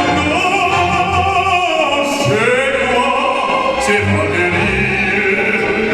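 Operatic singing: a classical voice holding long notes and gliding between them over instrumental accompaniment.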